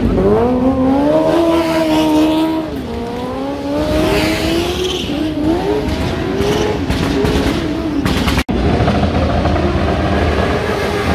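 Motorcycle engine revving hard, its pitch rising and falling, with tyre squeal as the bike drifts. The sound cuts out for an instant about eight and a half seconds in.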